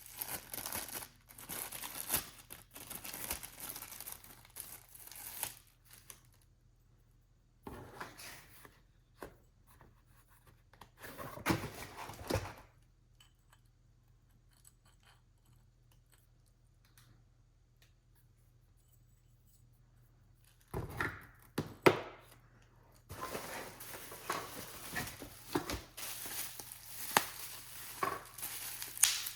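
Packaging being unwrapped: wrapping rustling, crinkling and tearing in several stretches, with a few sharp knocks, and a quiet gap of several seconds in the middle.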